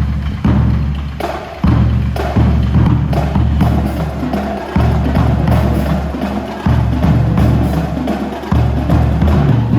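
High school marching band playing, the percussion section prominent: repeated drum strikes with sharp, wood-block-like clicks over a strong low bass.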